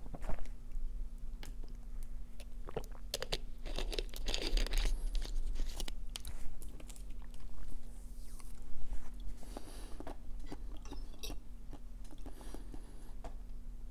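Close-miked eating: chewing with soft crunches and wet mouth clicks at irregular moments, over a faint steady hum.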